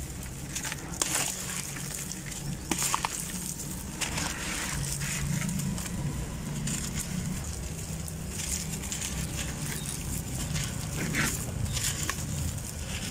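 A crumbly sand-cement block breaking apart in the hand over a tub of water, a gritty crunching and crackling in many short bursts, with crumbs and dry grit pattering and pouring into the water. A steady low hum sits underneath.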